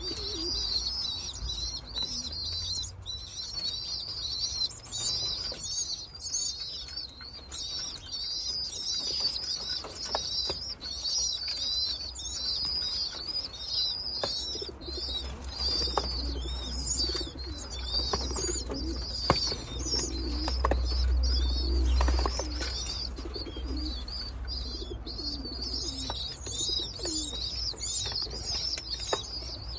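A group of young racing pigeons (squeakers) at a metal seed trough: a continuous stream of rapid, high-pitched squeaking calls over low cooing, with scattered short clicks of beaks pecking seed against the trough and occasional wing flutters.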